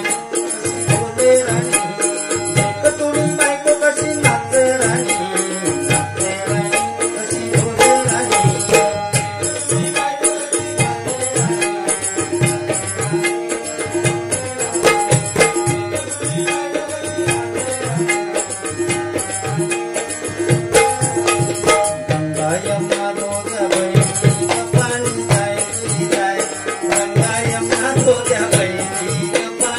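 Instrumental bhajan accompaniment: a harmonium plays held melody notes over a steady beat of hand-drum strokes, with small cymbals ringing throughout.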